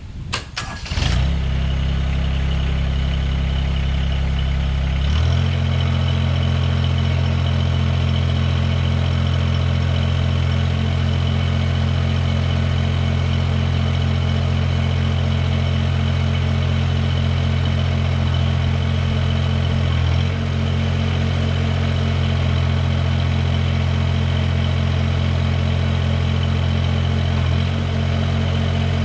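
Mahindra eMax 20S HST compact tractor's diesel engine starting with a brief crank, then running steadily. It is throttled up a few seconds in, with two brief dips in engine speed later on, typical of the loader or backhoe hydraulics being worked in a functional test.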